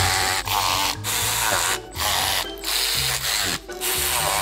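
Cordless power tool running bolts down in a series of short runs, each under about a second, with brief stops between: the bolts being tightened one after another in sequence.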